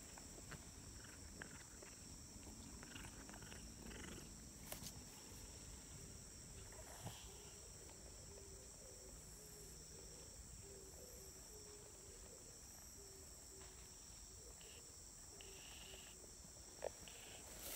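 Faint steady chirring of insects in the grass, with a few small clicks and rustles. In the middle there is a faint pulsing hum.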